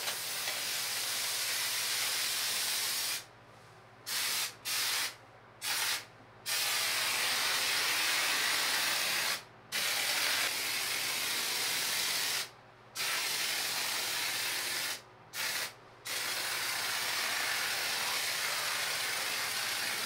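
IxirPro 30 oz closed-cell spray foam hissing out of the dispensing gun as it is sprayed onto a wall, in spells of a few seconds and short bursts as the trigger is pulled and released, with a long unbroken spray at the end.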